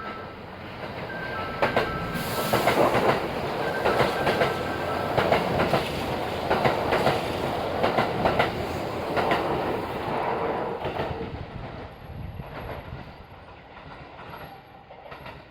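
Six-car Kintetsu chartered limited express train passing, its wheels clicking rhythmically over the rail joints. It grows loud about two seconds in and fades away over the last few seconds. A repeating two-tone electronic chime sounds through the first few seconds.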